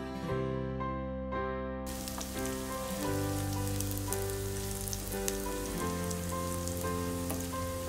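Sliced shallots and garlic sizzling and crackling in hot oil in a frying pan as they are stirred, starting about two seconds in. Background music with piano-like notes plays throughout.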